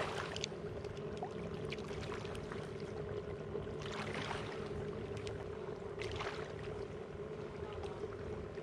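A steady motor drone holding one pitch, with a few short swishes about four and six seconds in.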